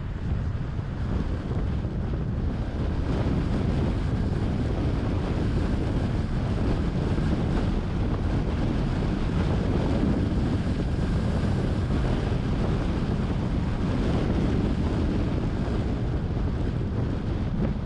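Steady wind buffeting the microphone over the low rumble of a car being driven, a dense, even noise with no distinct events.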